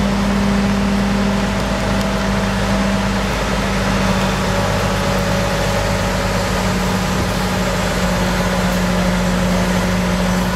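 An engine running steadily at constant speed: an even hum under a wash of noise that does not change.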